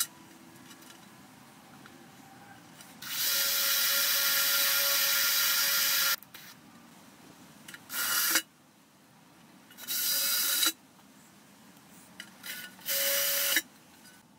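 DeWalt cordless drill running in four bursts at a hinge on a steel car wheel: one long run of about three seconds, then three short runs.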